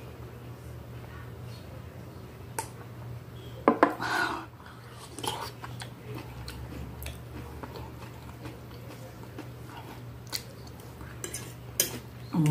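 Metal fork clinking and scraping on a glass plate a few times during eating, over a steady low hum.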